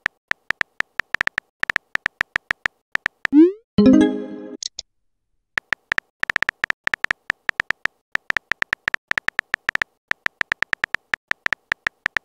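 Synthetic keyboard tap sounds from a texting-story app, several quick clicks a second as messages are typed out letter by letter. About three seconds in a rising whoosh marks a message being sent, followed by a short chiming message tone, and then the tapping resumes.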